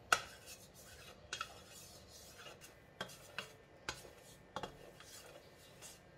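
Wooden spatula scraping and knocking against the inside of a cast iron wok as it spreads cooking oil over the surface to season it. It comes as a series of short strokes, the first the loudest.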